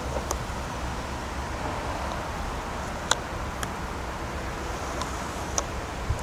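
Transfer tape being slowly peeled off vinyl lettering: a few faint crinkles and ticks over a steady low outdoor rumble.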